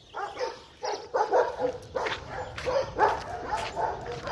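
Dog barking repeatedly in short, quick barks, several a second.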